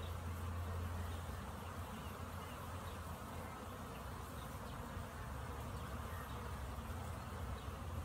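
Honey bees buzzing at a busy hive entrance: a steady, unbroken hum from the many bees crowding and flying in and out.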